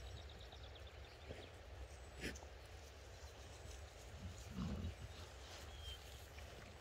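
A dog's short low grunt about two-thirds of the way through, with a sharp click about a third in, over a faint low rumble.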